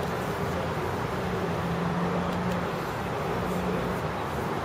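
Steady traffic noise with a faint low hum underneath; no sword clash is heard.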